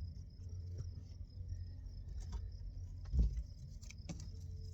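Small clicks and handling noises from hands working on engine-bay wiring, with one louder thump about three seconds in, over a steady low rumble.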